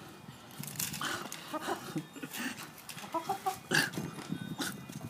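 Hens clucking in short calls, twice, over the scraping and crunching of a hand tool digging through loose soil.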